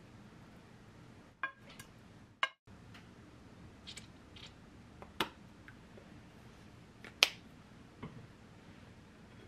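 A handful of separate sharp clicks and taps of kitchen utensils against a ceramic serving bowl as food is plated; the two loudest come about five and seven seconds in.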